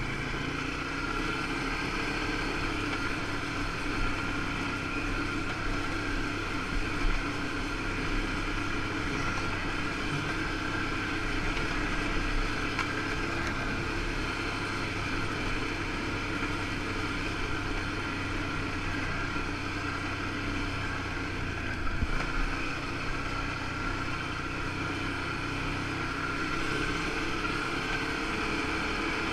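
A 2013 Can-Am 1000 XT ATV's V-twin engine runs steadily as the quad is ridden along a trail, with a few brief knocks along the way.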